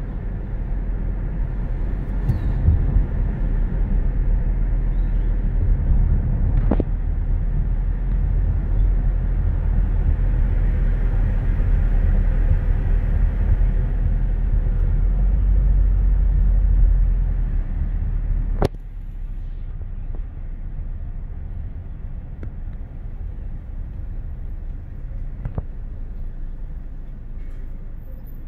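Road and engine noise inside a moving car's cabin, a steady low rumble. About two-thirds of the way through it drops suddenly at a sharp click and settles into a quieter hum as the car comes to a stop in traffic.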